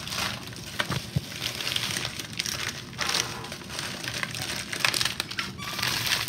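Plastic bags and foil-lined food packaging crinkling and rustling in the hands, with many small crackles, as they are handled and pulled open.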